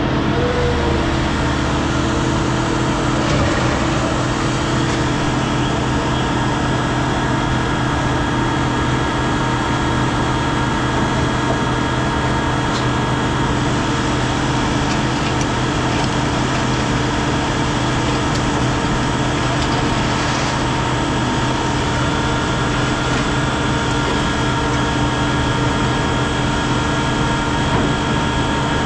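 Heavy scrap-handling machine's engine running steadily, a constant hum with several steady tones held throughout.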